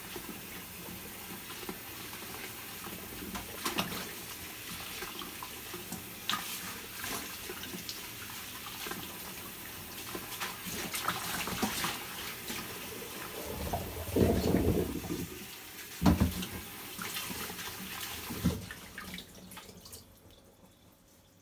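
Kitchen tap running into a basin of water while hands swish and rinse bunches of paragis grass, with small splashes and clicks. A few louder thumps come in the second half, and the running water stops near the end.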